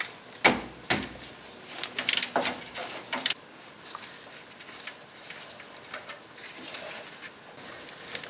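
Irregular metallic clicks and clinks from a ratchet and the sway bar end link hardware as the link is undone from the lower control arm, sharpest and loudest in the first few seconds. Lighter handling ticks follow.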